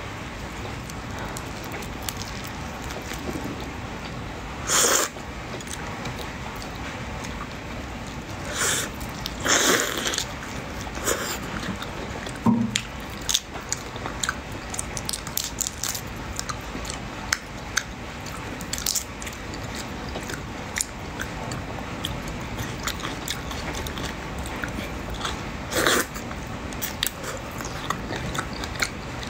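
Close-up eating sounds of a person biting and chewing prawns in spicy sauce, with scattered small clicks and a few louder, longer mouth sounds about five seconds in, around ten seconds, and near the end.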